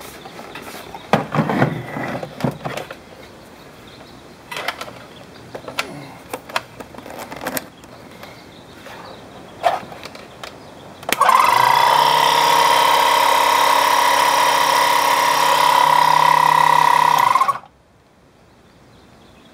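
Clicks and knocks of the unit being handled, then a 12-volt Interdynamics AirTool portable air compressor switches on about eleven seconds in. Its motor and pump run steadily with a high whine for about six seconds, then cut off suddenly.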